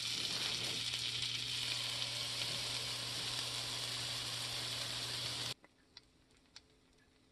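Butter sizzling in a hot cast-iron skillet as pancake batter is poured in and starts to cook: a steady frying hiss. It cuts off abruptly about two-thirds of the way through, leaving near silence with a few faint ticks.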